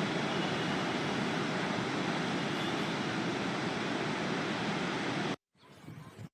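Floodwater rushing out through a dam's raised spillway crest gates: a steady, even rush of noise that cuts off suddenly about five seconds in, followed by fainter broken sounds.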